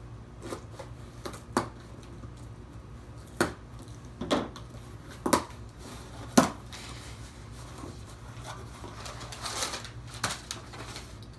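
A cardboard shipping box being opened with a knife: several sharp clicks and knocks spread over the first six seconds, then rustling of the packaging about nine seconds in.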